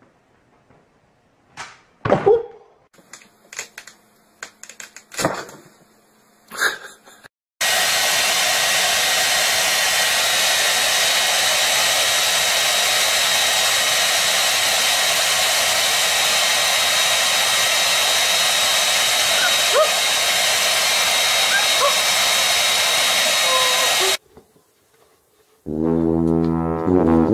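A few scattered knocks and scuffs, then a handheld electric hair dryer blowing steadily with a thin high whine. It comes on suddenly, runs for about sixteen seconds and cuts off. Guitar music starts near the end.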